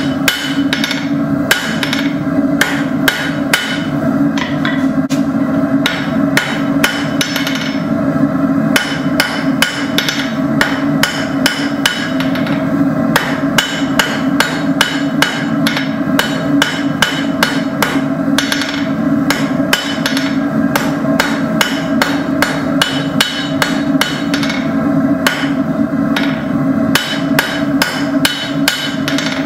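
Blacksmith's hand hammer striking a 5/16 in. steel rod on the anvil in a steady run of blows, about two to three a second, with a few brief pauses. The steel is being worked at a dark heat. A steady low hum runs underneath.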